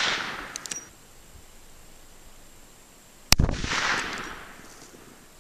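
Marlin 1894 lever-action .44 Magnum rifle: a single shot a little over three seconds in, followed by an echo rolling back off the woods and fading over about a second and a half. Before it, the echo of the previous shot dies away and a few short clicks are heard.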